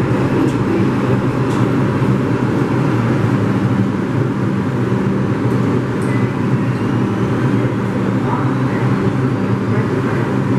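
New York City subway 1 train running, a steady loud rumble of wheels and motors on the rails.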